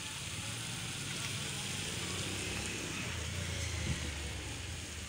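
Chowmein noodles sizzling in a hot wok over a gas burner, a steady hiss, with a single knock about four seconds in.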